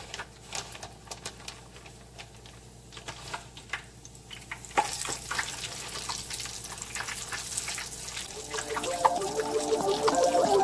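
Flour-coated fish pieces frying in hot oil in a frying pan, sizzling with many small crackles and pops; the sizzle grows louder about halfway through. Music comes in near the end.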